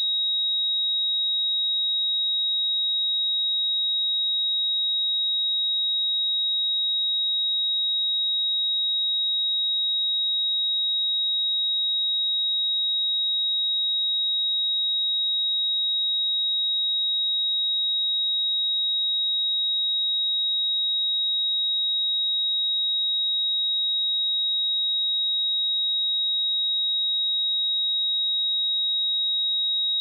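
A pure electronic sine-wave test tone at 3796 Hz, a single high-pitched steady whistle held at constant pitch and level.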